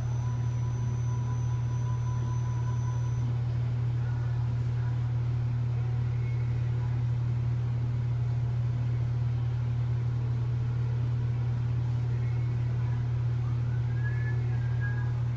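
Steady low hum of a medical linear accelerator and its treatment room during a whole brain radiation session, with a faint high tone that stops about three seconds in.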